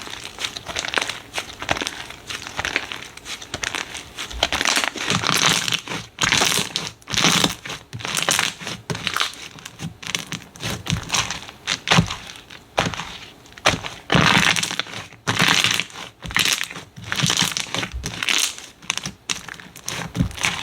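Slime being squished, pressed and poked by hand: an irregular run of short crackling, clicking squishes, with a few louder presses.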